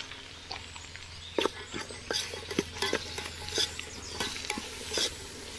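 Metal spoon clinking and scraping against a cooking pan while stirring, in irregular light knocks over a low steady hum.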